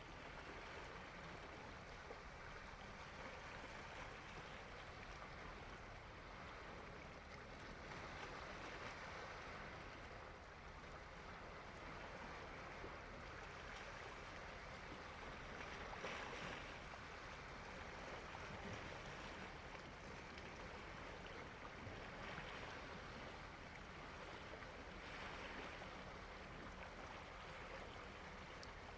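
Faint sea surf: small waves washing onto the shore, swelling and easing every few seconds.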